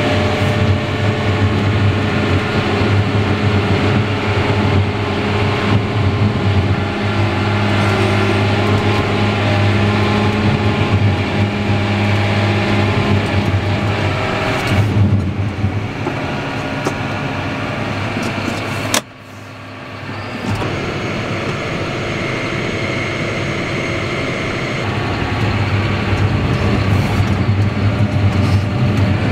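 John Deere tractor's diesel engine running steadily under way, heard from inside the cab. About two-thirds through, the sound drops away suddenly and builds back up over a couple of seconds.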